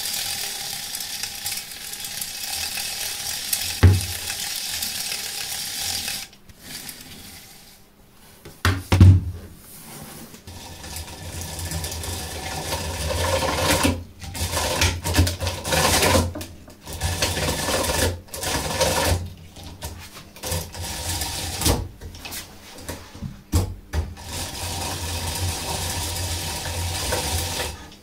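Hand-cranked chainsaw with a small gear-driven chain: the chain rattles around the bar and over the brass gears as the crank is turned, then chews into a wooden block in uneven spurts with short pauses. There are a couple of sharp knocks in the first half.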